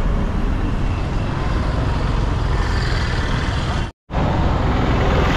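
Steady rushing wind and road noise on the microphone of a camera carried on a moving bicycle, heaviest in the low end. About four seconds in it cuts out for a split second, then goes on the same.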